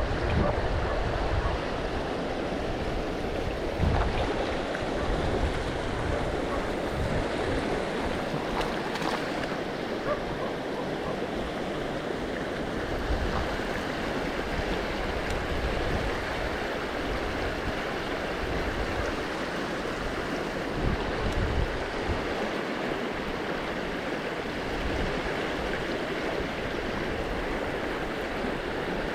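River water flowing steadily, with wind buffeting the microphone now and then.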